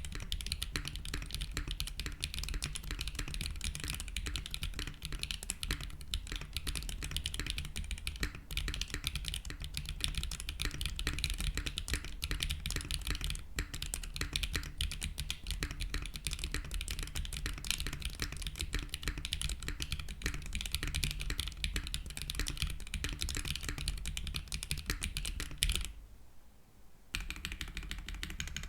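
Continuous fast typing on a keyboard with HMX T-Rex linear switches (PC top housing, PA66 bottom, POM stem) in an aluminium-plated OC-62 with no foam, under GMK keycaps: a dense stream of loud, high-pitched, slightly resonant keystrokes. The typing stops briefly about 26 seconds in, then picks up again.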